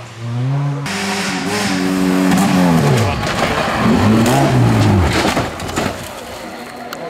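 Rally car engine at high revs on a loose dirt stage. The pitch drops sharply as it comes off the throttle, then rises and falls again through the corner, over a heavy hiss of tyres and gravel. A few sharp ticks near the end.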